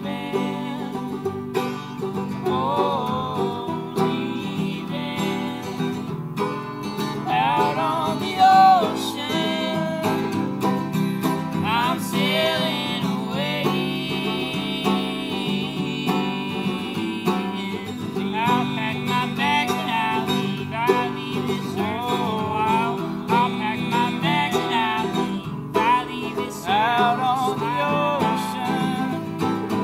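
Acoustic guitar strumming and banjo picking a folk song, with singing over it that comes and goes in long, wavering notes.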